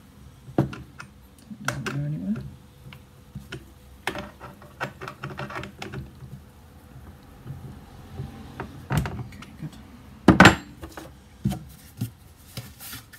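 Scattered clicks and knocks of a metal combination spanner and a chainsaw-type bar being handled on a wooden workbench while the guide-bar nuts are tightened, with one louder knock about ten seconds in.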